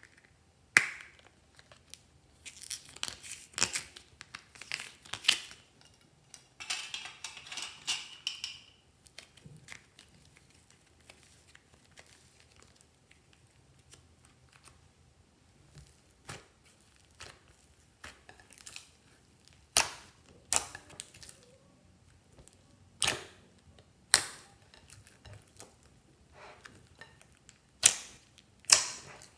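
Hands kneading clay and slime: crackling of a thin plastic mould being squeezed in the first few seconds, a short tearing hiss, then sharp pops and clicks spaced a second or more apart as glossy slime is pressed and stretched.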